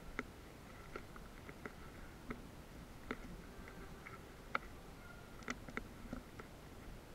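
Faint, scattered sharp clicks and ticks, about eight over several seconds, the loudest a little past the middle, over a low hiss with a few faint short high tones between them.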